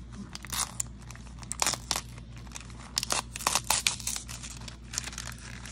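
A face mask's individual wrapper being torn open and handled, crinkling and crackling in irregular spells.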